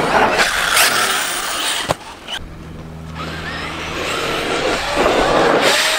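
Electric RC trucks running on dirt: motors whining up and down in pitch over a rush of tyre and dirt noise, broken by abrupt cuts about two seconds in. Near the end a truck revs hard as it launches off a dirt jump.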